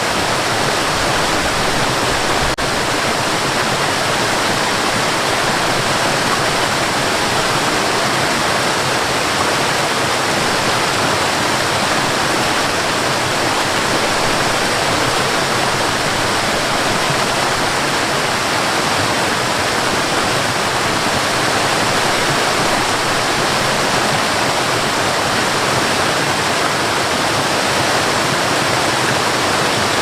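Waterfall and river water rushing steadily, an even, unbroken sound of falling and flowing water.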